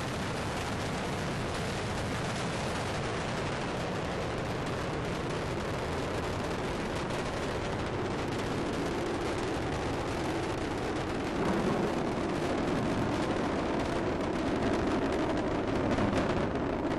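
Space Shuttle Discovery's solid rocket boosters and main engines during ascent: a continuous, dense crackling rocket noise that grows a little louder about eleven seconds in.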